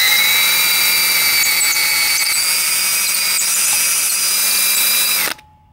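Power drill running a twist bit down through a stud hole in a rotary-engine housing, chasing out the crud left by seized studs. A steady whine that dips in pitch for a moment at the start and stops near the end.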